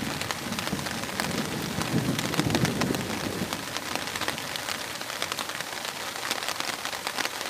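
Heavy rain pouring onto a river and its bank, a dense patter of drops with many sharp close ticks. A low rumble swells up about two seconds in and fades a second or so later.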